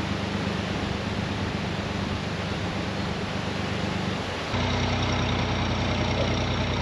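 Narrowboat engine running steadily at low revs. About two-thirds of the way through its note steps up a little and gets slightly louder.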